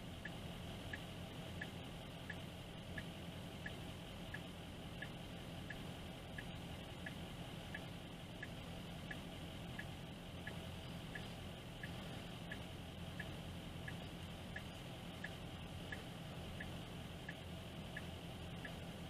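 Car turn-signal indicator clicking steadily, about one and a half clicks a second, over the low steady hum of an idling engine.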